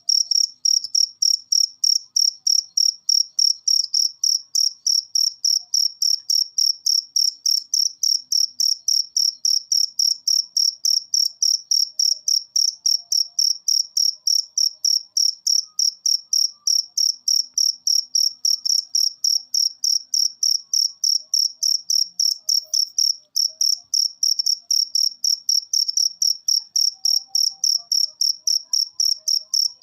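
Cricket chirping in a steady, even rhythm of about three high-pitched chirps a second.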